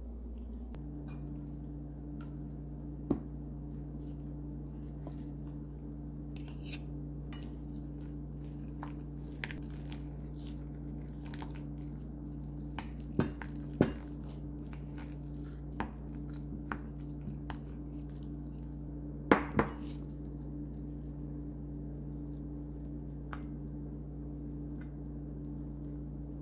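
Wooden spoon knocking and scraping against a ceramic bowl and plate while mashing and spreading sweet potato, with scattered sharp clinks, the loudest a pair about two-thirds of the way through. A steady low hum runs underneath from just under a second in.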